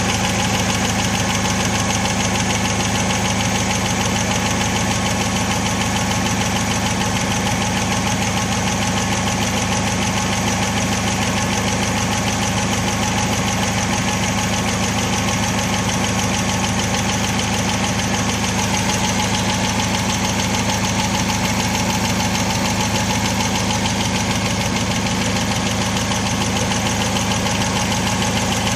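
Chery Amulet engine idling steadily with a fast, even knock running through it: the unexplained engine knock that is being diagnosed.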